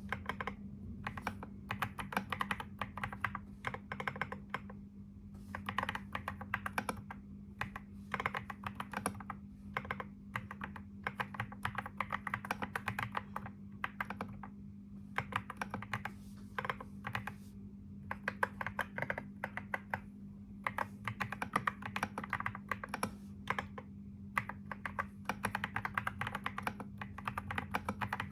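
Typing on a computer keyboard: quick runs of key clicks broken by short pauses every few seconds, over a steady low hum.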